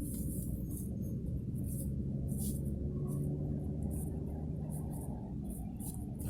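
Jeep Grand Cherokee running, a steady low rumble of engine and drivetrain, with scattered faint high ticks. The recording is meant to catch a thud or thump under acceleration that the owner suspects comes from a motor mount, but no distinct thump stands out.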